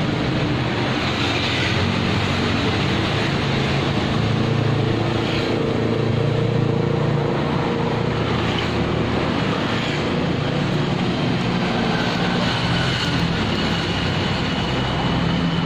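Steady street traffic noise with the hum of vehicle engines.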